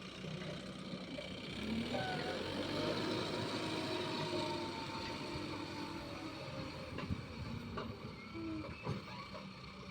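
Heavy diesel engines running steadily, with a few sharp knocks in the second half.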